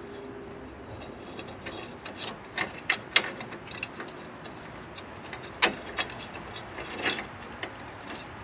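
Irregular metallic clicks and clanks of hand tools, nuts and bolts as a replacement frame section is bolted up, with a few sharp knocks in the middle stretch.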